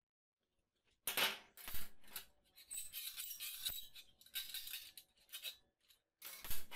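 Metal tools clinking, knocking and rattling on a metal workbench top as a chrome caulking gun and a motorcycle sprocket are set down and handled. The hard knocks come about a second in and again near the end, with lighter clatter between.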